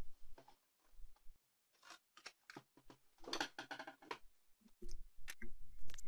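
Scattered light clicks and rustling as an HP Compaq dc7800 ultra-slim desktop PC is handled and its power cord plugged in, with a denser patch of handling noise partway through and a few soft knocks near the end.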